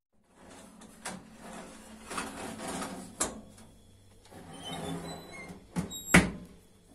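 Metal baking trays scraping and clattering onto an oven rack, then the oven door shutting with two sharp knocks near the end, the second the loudest.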